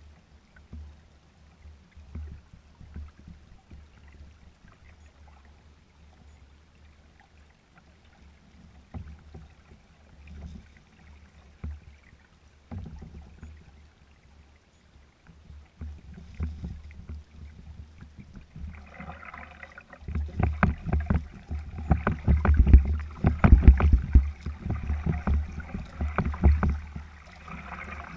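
Small waves lapping and slapping against a kayak's hull, over a low, gusty rumble of wind on the microphone. The splashing grows much louder and busier about two-thirds of the way through.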